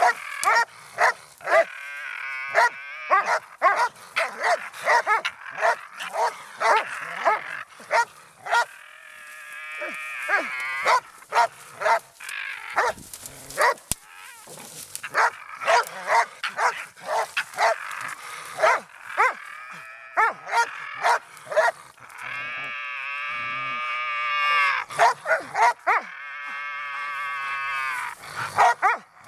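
A young Russian-European Laika barks rapidly and repeatedly at a raccoon it is working, with two longer drawn-out cries near the end.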